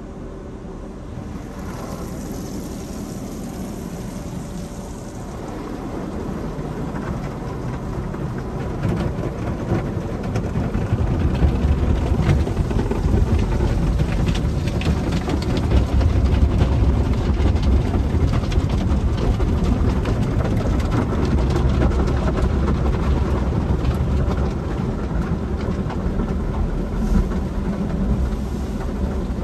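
Express conveyor car wash tunnel equipment running: a dense rush of water spray and machinery that builds over the first ten seconds into a heavy low rumble, with a rapid crackle of hits on top.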